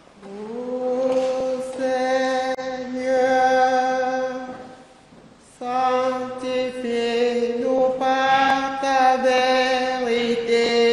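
Slow sung chant of long, held vocal notes in two phrases, with a short break about five seconds in.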